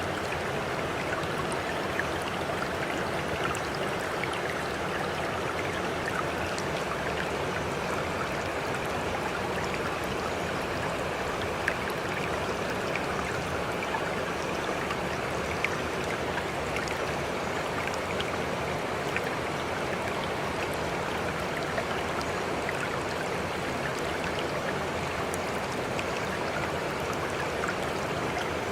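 Flowing water running steadily, an even rushing with scattered small splashes and droplet clicks.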